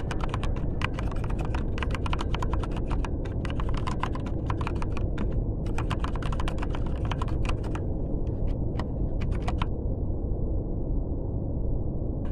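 Computer keyboard typing: a rapid run of key clicks with a short pause about five seconds in, stopping about ten seconds in, over a steady low rumble.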